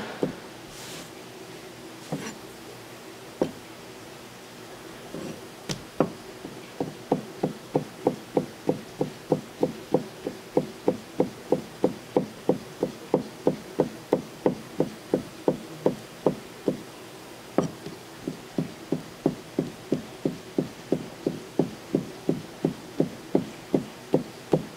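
Kitchen knife striking a cutting board in a steady rhythm of about three strokes a second, as cuttlefish is cut up for sashimi. A few scattered knocks come first, the steady chopping sets in about six seconds in, and it pauses briefly a little past the middle.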